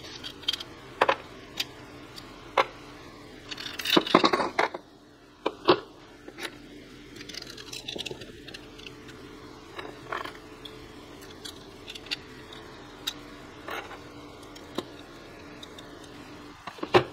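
Hands working a graphics card's metal mounting bracket and its small screws: scattered light clicks and taps of metal, with a louder scraping rustle about four seconds in.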